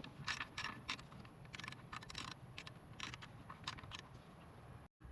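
Ratchet with a 19 mm deep socket clicking in short runs as the PCV valve is unscrewed from the engine. The runs thin out over the last second or so and stop abruptly near the end.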